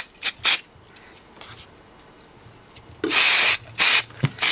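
Aerosol release spray hissing out in short bursts: three quick puffs at the start, then a longer spray of about half a second three seconds in, followed by two shorter puffs.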